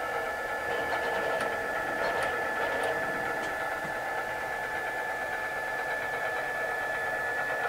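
Stepper motors of a CNC wood lathe jogging the tool carriage, a steady whine with a few faint clicks early on, cutting off abruptly at the end as the jog stops.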